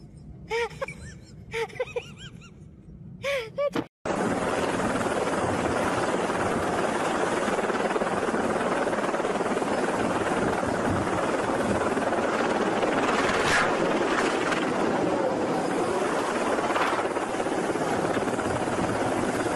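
Small helicopter running on a ship's helideck, its engine and rotor with the wind making a dense, steady roar that starts suddenly about four seconds in. Before that, a few short voice sounds.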